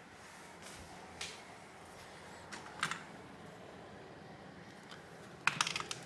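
Light clicks and taps of small hand tools handled on a desk, with a quick cluster of sharp clicks near the end as a tool is picked up.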